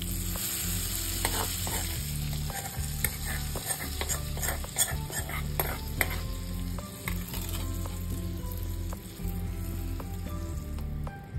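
Hot tadka oil with red chillies and curry leaves sizzling as it is poured onto the kadhi. The sizzle is strongest at the first pour and then dies down. A metal spoon clicks and scrapes against the small tempering pan as it is emptied.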